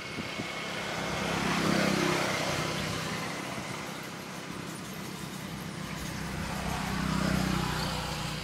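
Motor vehicles passing on a nearby road: engine and tyre noise swells up and fades away twice, peaking about two seconds in and again near the end.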